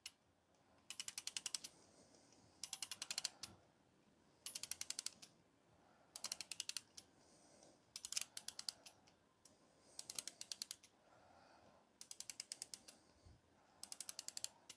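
Mainspring of an antique Ansonia eight-day clock movement being wound with a key: the click snaps over the ratchet wheel in quick runs of about eight to ten clicks, one run per turn of the key, eight turns about two seconds apart. The spring is being wound up to take its pressure off the retainer clamp so the clamp can be removed.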